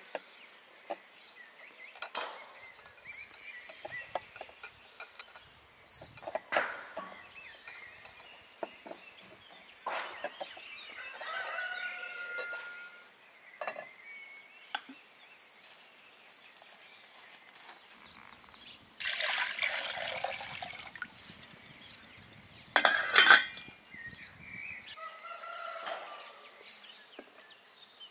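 Outdoor cooking sounds: metal cookware clinking and being set on a cast-iron wood-burning stove, with one loud clank about three quarters of the way through and a brief rush of noise just before it. A rooster crows once near the middle, and small birds chirp throughout.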